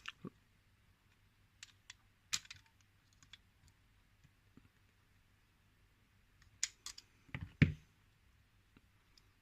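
Scattered small metal clicks and taps of circlip pliers working at the retaining clip on the back of a euro cylinder lock, with a group of sharper clicks and a louder knock about seven and a half seconds in.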